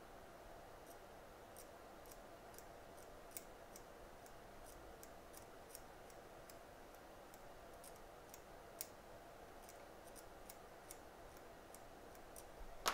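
Faint, irregular small clicks and scratches of a knife blade scraping around the A11 RAM chip on an iPhone 8 Plus logic board, over a low steady hum.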